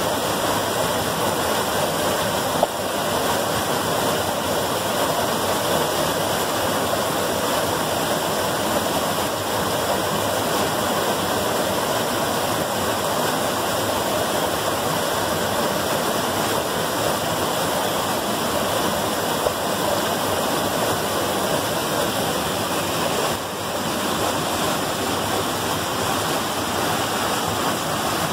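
A small creek waterfall, with white water rushing steadily over and between boulders into a pool.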